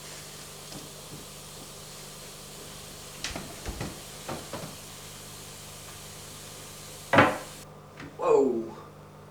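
A few light knocks and clatters over a steady low hum, then a loud sharp bang about seven seconds in, followed by a short sound that falls in pitch.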